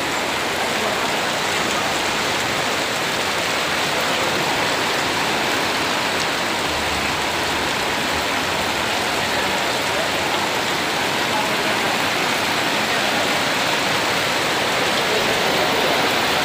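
Heavy rain pouring down in a steady, dense hiss that holds unchanged throughout.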